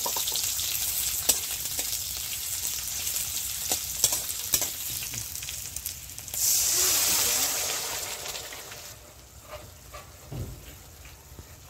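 Sliced onions and garlic sizzling in hot oil in a metal karahi, with a steel spatula clicking and scraping against the pan as they are stirred. The sizzle swells louder about six seconds in, then dies down to a faint hiss near the end.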